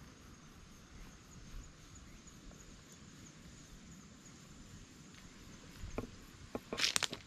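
Faint outdoor background noise with a thin steady high hiss, and a short cluster of sharp clicks and rustles near the end.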